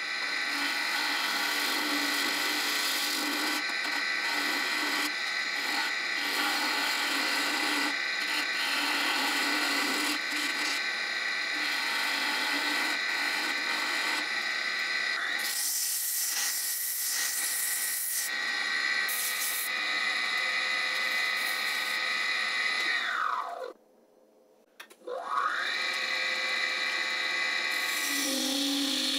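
Wood lathe running with a steady whine while a turning tool cuts the thin goblet stem, a hiss of shavings louder for a few seconds about halfway through. About three-quarters in, the whine falls away to near silence for about a second and rises back.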